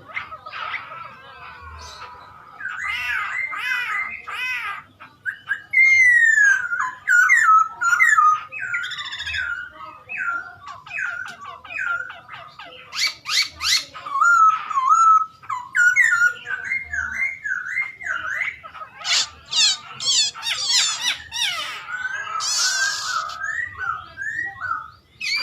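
Hwamei (Poksay Hongkong) songbird singing a long, varied song of whistled notes that slide up and down, broken by bursts of rapid, higher trills.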